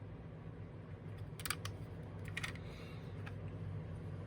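A handful of small, sharp clicks of a plastic action figure being handled and turned, over a steady low hum.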